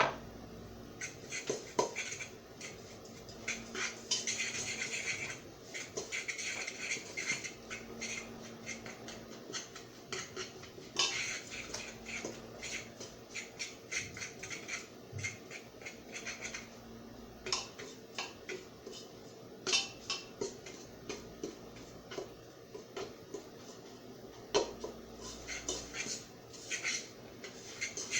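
A metal fork cutting margarine into a crumb topping in a mixing bowl: repeated scraping against the bowl with many short clicks and taps of metal on the bowl.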